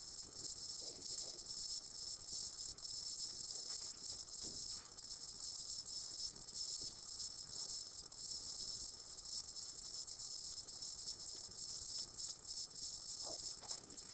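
Faint, steady high-pitched hiss from the recording's background noise, with a few faint soft ticks.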